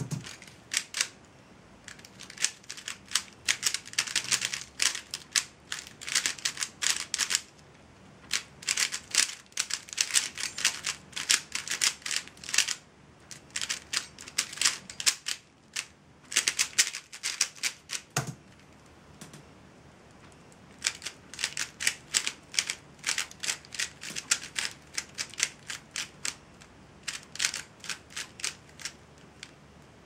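A Dayan Zhanchi 3x3 speedcube being turned very fast by hand, its plastic layers clicking in rapid runs with short pauses. About 18 seconds in there is a single knock where the timed solve ends. The clicking stops for a couple of seconds and then the cube is turned again.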